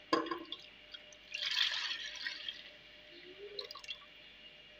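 Blended yogurt, gram flour and water poured into a pot of fried spices, splashing in for about a second. A sharp knock comes at the start, and a few light clicks near the end.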